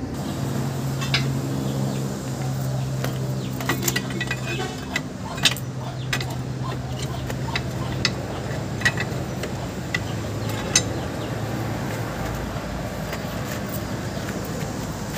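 Scattered sharp metal clinks and knocks, about a dozen, from the handling and fitting of a CV axle (drive shaft) to a Suzuki Multicab's front drive, over a steady low hum that fades out about ten seconds in.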